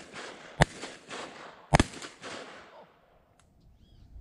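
Two shotgun blasts about a second apart, fired skyward at flying ducks, each followed by a trailing echo that dies away.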